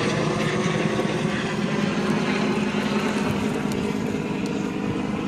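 A military aircraft circling overhead, its engine giving a steady drone.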